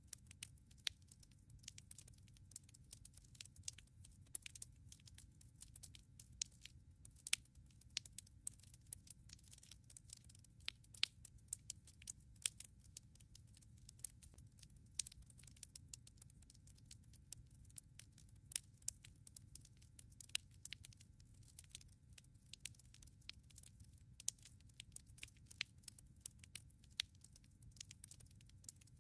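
Wood fire crackling in a fireplace: a dense, irregular run of sharp snaps and pops from burning logs over a low, steady rumble of the flames.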